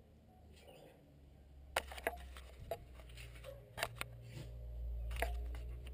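Hands working the plastic air filter box of a car's engine bay: about half a dozen sharp plastic clicks and knocks, starting about two seconds in, over a low steady rumble.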